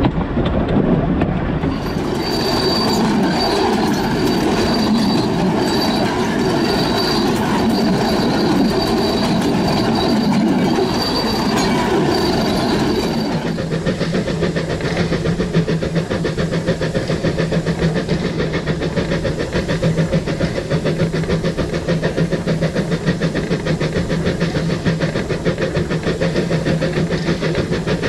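Narrow-gauge steam train running along the line, with the rumble of wheels on rail and the engine working. A thin high whine comes and goes for the first half, then the sound changes abruptly to a steadier hum with fast, even beats.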